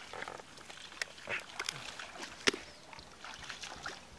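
Handling noise from a bamboo fish trap being hauled out of the water through water hyacinth: scattered knocks and rustles, the sharpest knock about two and a half seconds in.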